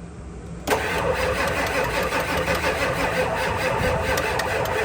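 Ford 7.3L Powerstroke diesel turned over by its starter motor, cranking with an even pulse that starts suddenly about 0.7 s in and never catches. The mechanic blames electrical trouble and suspects the glow plugs aren't working.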